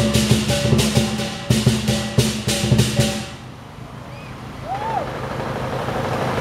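Lion dance drum, cymbals and gong playing a fast, steady beat of crashes, stopping abruptly a little after three seconds in. Crowd noise follows and grows louder toward the end.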